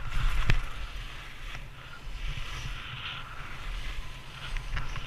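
Skis hissing and scraping over snow during a downhill run, with wind buffeting the camera's microphone and a sharp knock about half a second in.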